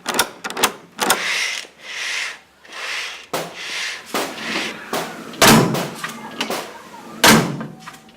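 A run of sound effects: a few sharp clicks, then several rustling swishes, then two loud, heavy bangs about two seconds apart, like a door slamming.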